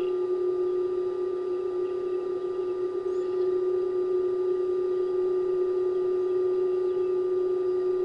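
A steady hum at one even pitch, with faint high bird chirps over it at the start and about three seconds in.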